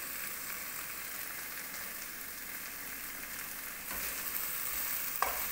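Chicken pieces in a sauce of stock, ketchup and soy sauce sizzling steadily in a pan on the stove, with a couple of faint clicks a little after the midpoint.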